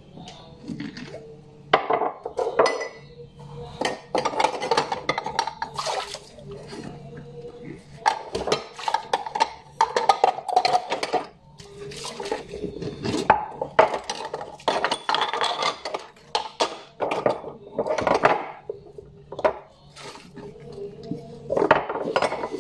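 Dishes being washed by hand at a sink: glasses and plates clinking and knocking against each other in irregular bursts, with scrubbing and water sounds in between.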